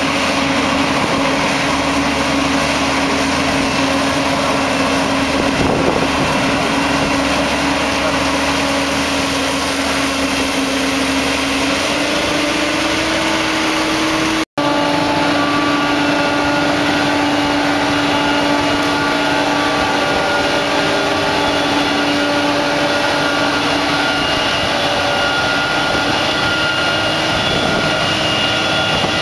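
Krone BiG X 1100 self-propelled forage harvester running steadily under load, harvesting maize with a 14-row EasyCollect 1050 header. The engine and chopper make a loud continuous drone that shifts slightly up in pitch about twelve seconds in and cuts out for an instant about halfway through.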